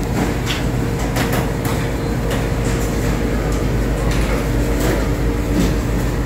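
Busy buffet dining-hall ambience: a steady low hum with indistinct background voices and frequent short clinks and clatter of dishes and cutlery.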